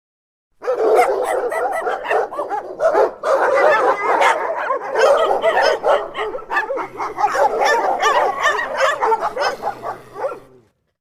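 Dog barking and yipping in a dense, unbroken run of calls. It starts abruptly about half a second in and cuts off shortly before the end.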